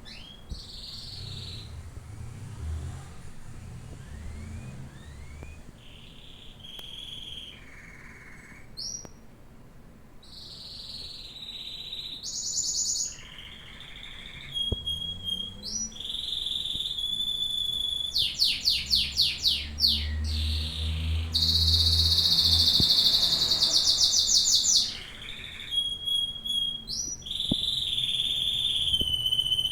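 Domestic canary singing a long, varied song of whistled phrases and rapid trills, quieter at first and louder from about halfway, with a long loud trill in the middle.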